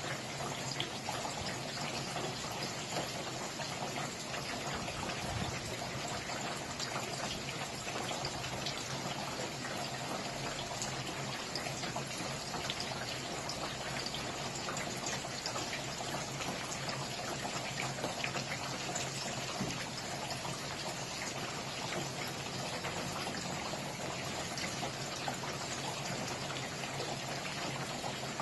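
Steady rain falling, a dense patter of many small drop impacts over an even hiss, with a trickle of running water.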